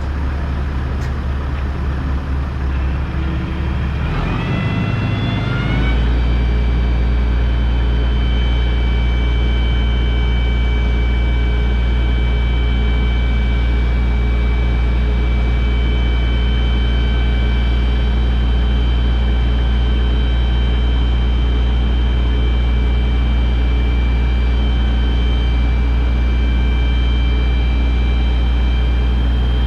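Heavy diesel engine running. About four to six seconds in it revs up with a rising whine, then settles into a steady loud drone with a high whine.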